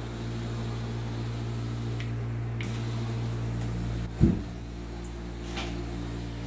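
Powder-coating booth equipment running steadily as white powder is sprayed from a Nordson Encore gun: a low hum under an even air hiss. There is one brief low thump about four seconds in.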